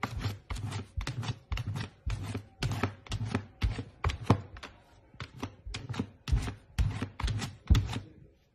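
A puppy's paws and claws tapping and scratching at a clear plastic kibble storage bin: a quick, uneven run of hard clicks and knocks, about three a second, that stops just before the end.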